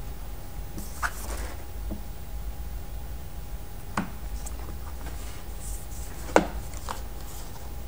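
A few light taps and clicks of plastic Play-Doh tools and pieces being handled on a tabletop, over a faint steady hum. The loudest click comes a little after six seconds in.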